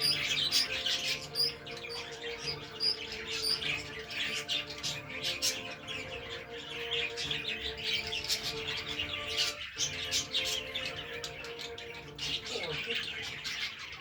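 Budgerigars chirping and chattering continuously in quick, busy runs of short chirps, over a steady low hum.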